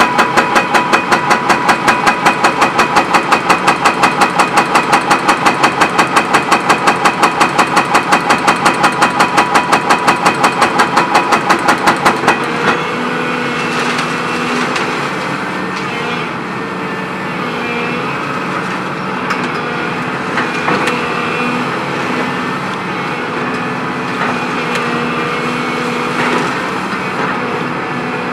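Dehaco IBEX 7500HS hydraulic breaker hammer pounding concrete at a rapid, even rate of about five blows a second. It stops abruptly about twelve seconds in, leaving the Volvo EC 700C excavator's diesel engine and hydraulics running.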